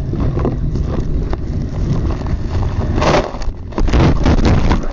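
Wind rushing over the microphone and water spray splashing during a fast ride on a towed inflatable over the sea, with two heavier bursts of spray about three and four seconds in.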